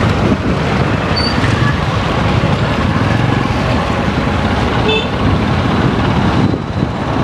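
Steady road traffic and vehicle noise, with a brief horn toot about five seconds in.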